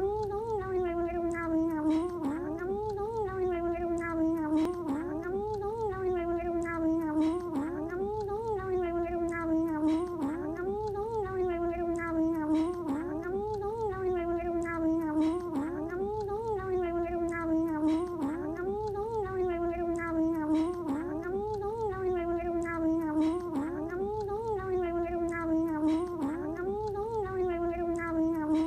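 Pet cat making continuous 'yummy' sounds while eating: one unbroken, drawn-out tone that rises and falls in pitch about every two seconds.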